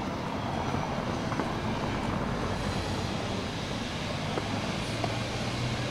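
Steady city street noise with a vehicle running close by, heard as a low, even hum that grows a little stronger in the second half.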